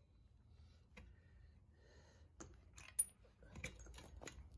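A few faint, scattered metallic clicks and taps, one sharper click about three seconds in and several more near the end, as the impact wrench's socket is lifted off the freshly loosened clutch nut of a Honda Helix scooter's clutch assembly.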